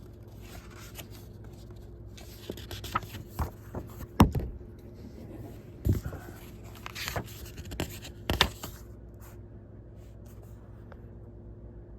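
Handling noise as the packaging of a disc set is handled: scattered scrapes and knocks, the loudest about four seconds in, over a faint steady hum. The handling stops for the last few seconds.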